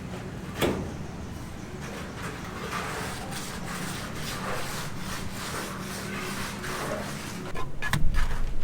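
Irregular scraping and rubbing over a low steady hum, with a sharp click about half a second in and a few louder knocks near the end.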